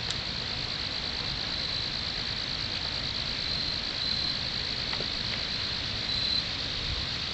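Crickets chirping in a steady, high, finely pulsed trill over faint outdoor background noise.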